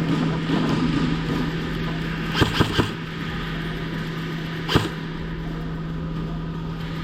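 Sharp airsoft gun shots: three in quick succession about two and a half seconds in, and a single one about two seconds later, over a steady low hum.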